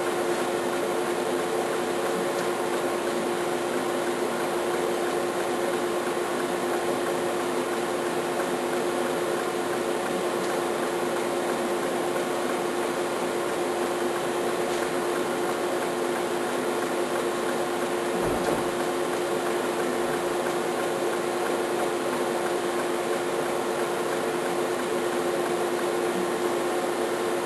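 Laser welding system with its XY motion table running: a steady hum with a constant low tone over an even hiss, and no distinct weld pulses.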